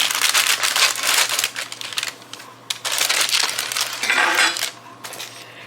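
A spatula scraping along a baking pan as it slides under freshly baked cookies to lift them off, in two rough, clattering stretches.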